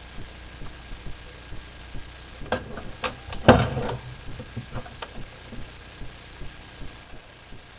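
Clicks and knocks of small parts and tools being handled on a workbench, over a steady low hum. A cluster of sharper knocks comes about two and a half to four seconds in, the loudest about three and a half seconds in.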